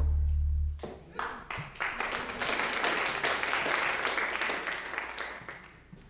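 The worship band's last chord on acoustic guitar, electric bass and keyboard rings briefly and stops under a second in, then the congregation applauds, the clapping building and fading away near the end.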